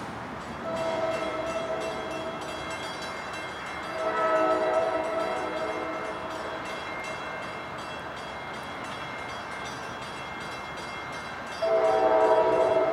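Commuter train horn sounding three blasts of several notes at once: one about a second in, a louder one at about four seconds, and a loud long blast starting near the end. Under them is a quick, even ticking.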